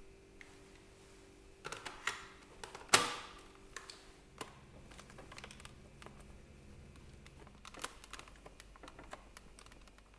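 Plastic parts of a Dyson V6 cordless vacuum clicking and tapping as they are handled, with one loud snap about three seconds in.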